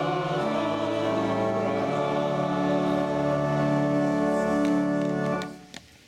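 Choir singing a slow, sustained passage, closing on a long held chord that stops a little over five seconds in, followed by a few faint rustles and clicks.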